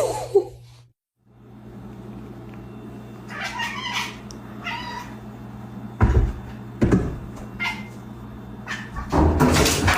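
Domestic cat meowing a few times over a steady low hum, with two thumps partway through and a louder call near the end.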